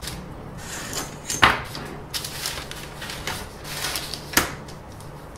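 Handling noises on a workbench: paper rustling and sliding as a steel ruler is picked up and laid across it, with two sharp knocks, one about a second and a half in and one near the end.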